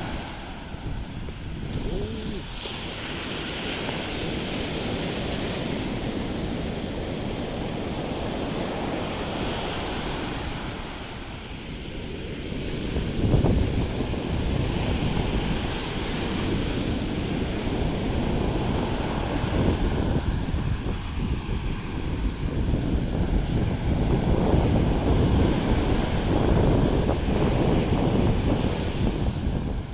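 Sea waves washing onto the beach, swelling and ebbing, with wind buffeting the microphone. One louder crash comes a little under halfway through.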